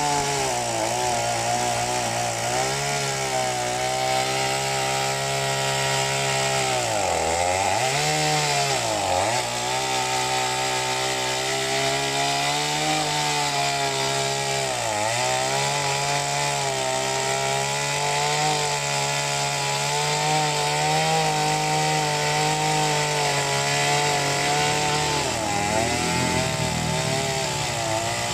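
Chainsaw engine running at high speed, cutting wood. Its pitch dips sharply and recovers about four times as the revs drop.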